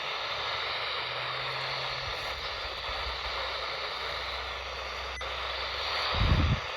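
Weather radio receiver hissing with steady static between transmissions, a faint low hum under it. A single dull low thump about six seconds in.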